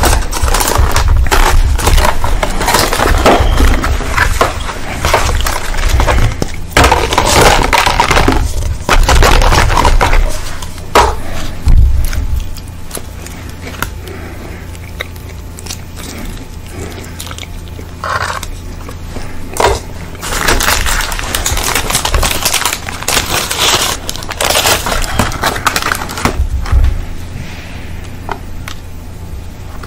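Close-miked crinkling and rustling of fast-food paper wrapping and cardboard boxes being handled and opened, with a plastic sauce sachet torn and squeezed. The sounds come in irregular bursts of crackle with quieter spells between.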